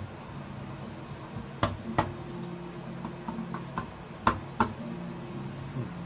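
Screwdriver clicking and tapping against small screws as they are turned hand-tight into a graphics card's cooler: two pairs of sharp clicks with a run of lighter ticks between them. A faint steady hum runs underneath.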